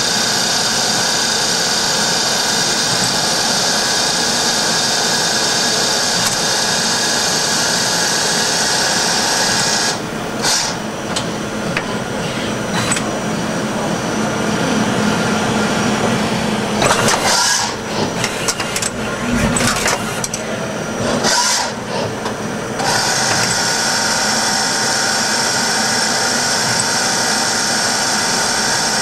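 Tsugami BU26-SY Swiss-type CNC lathe running a machining cycle: a steady, loud whirring hiss. About a third of the way in it turns uneven, with dips and several sharp bursts, then settles back into the steady run for the last few seconds.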